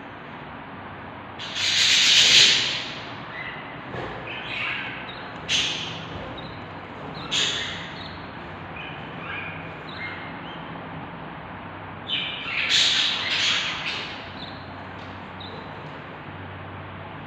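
Baby budgerigar chicks calling inside a nest box: several short, raspy cheeps over a steady hiss. The loudest and longest comes about two seconds in, and another cluster of calls comes later on.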